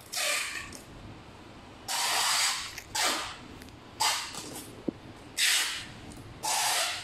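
A series of six short hissing bursts, each under a second, about a second apart, over a steady low background noise.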